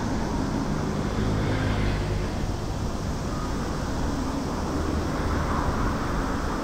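Road traffic: a steady rumble of car engines and tyres, with a low engine hum most prominent in the first couple of seconds.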